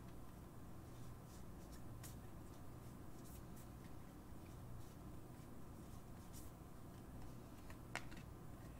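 Faint soft ticks and flicks of a stack of baseball trading cards being thumbed through by hand, over a low steady hum, with one sharper click about eight seconds in.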